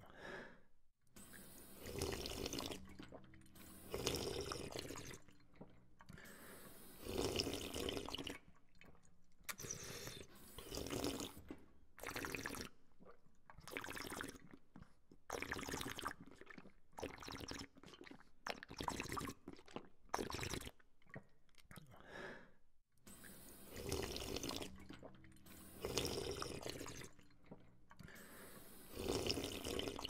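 Water from a drinking fountain running and splashing as someone drinks from it. It comes in bursts of a second or two with short pauses between.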